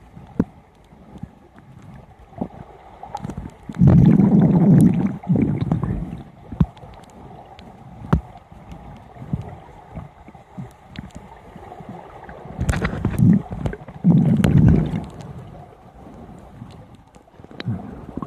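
Scuba diver's exhaled bubbles heard underwater: two long, low rumbling bursts, about four seconds in and again around thirteen seconds, with faint crackling and clicking between.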